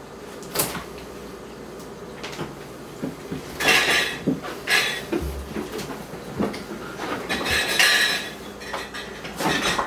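Dishes and other kitchen objects clattering and rattling in irregular bursts, with a sharp click about half a second in and the loudest clatter in the middle and near the end.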